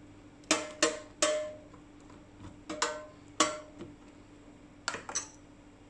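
Metal spoon clinking and scraping against a metal loaf pan while spreading a thick chocolate mixture: about eight sharp clinks, several with a short metallic ring.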